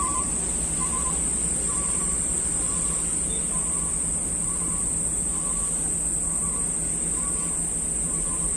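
Steady high-pitched insect drone, likely crickets or cicadas, over a low steady hum, with short beeps repeating evenly about every three-quarters of a second.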